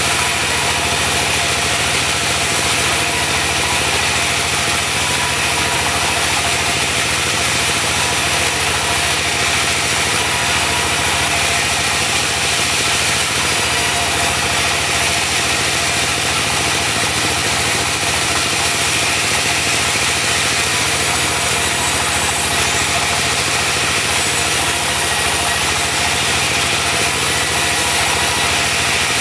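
Diesel engine driving a portable band sawmill, running steadily at an even speed, with a continuous high hiss over the engine drone.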